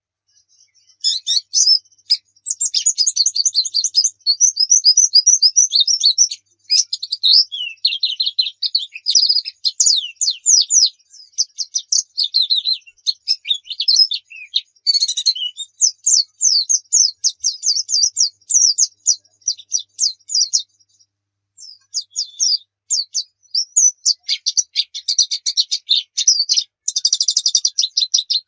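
White-eye (pleci) singing long runs of rapid, high chirps and trills, with short pauses about 7 seconds in and again about 21 seconds in.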